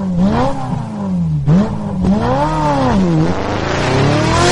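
Engine sound effect laid over the picture of the toy: an engine revving up and down a few times, then climbing steadily in pitch as it accelerates near the end.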